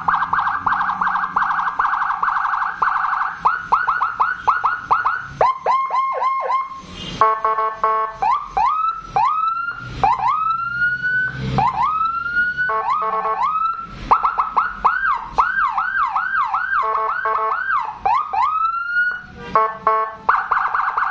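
Custom 100-watt electronic police-escort siren (100 W module and 100 W speaker) with Whelen 295SL tones, cycling through its patterns: a rapid pulsing tone, slow rising whoops about a second apart, fast rising sweeps and a stepped two-tone, then back to rapid pulsing near the end.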